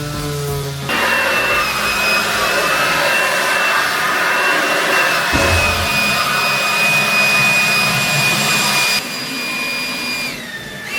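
Electric sander running on the subwoofer box, sanding off old glue residue: a steady high whine over a rough hiss, starting about a second in. The hiss stops about nine seconds in and the whine drops as the sander spins down.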